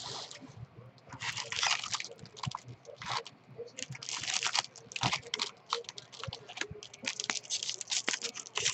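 Plastic-foil wrapper of a jumbo pack of Topps baseball cards crinkling and crackling as it is handled and torn open, in an uneven run of quick crackles.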